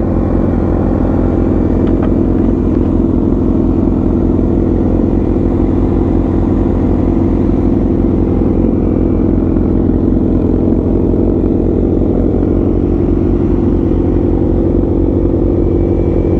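Inline-four sport-bike engine idling steadily close by, with an even pitch and no revving.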